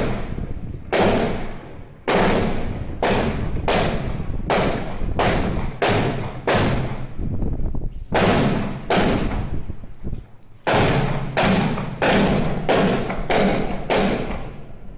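Heavy machine-gun fire: about twenty single heavy shots at an uneven pace of roughly one or two a second, each with a long echoing tail, with a brief pause about two-thirds of the way through.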